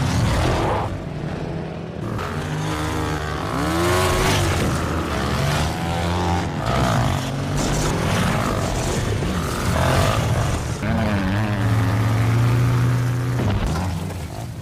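Two dirt bike engines revving hard, their pitch rising and falling again and again, with a longer steady stretch near the end.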